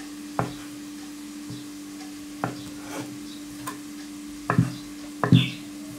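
A kitchen knife cutting boiled potatoes into cubes, knocking on a cutting board in a few irregular strokes, the loudest near the end, over a steady low hum.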